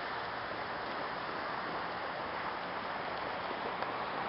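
Steady wash of small waves breaking and running up a beach, an even rushing hiss without a break.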